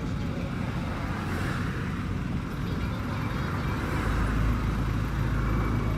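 A motor vehicle running close by, a low steady rumble with road or traffic noise that gets louder about four seconds in.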